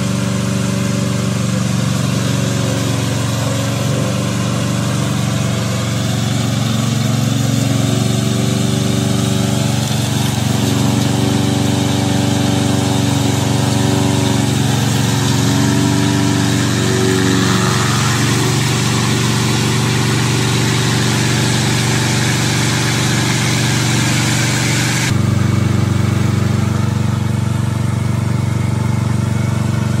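Gasoline engine of a remote-control tracked lawn mower running steadily, its pitch wavering a little in the middle as the machine is driven. The tone changes abruptly near the end.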